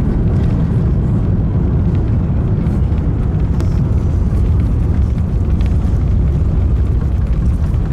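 Cabin noise of an Airbus A350-1000 rolling on the ground shortly after landing: a loud, steady low rumble from the engines and the wheels on the runway.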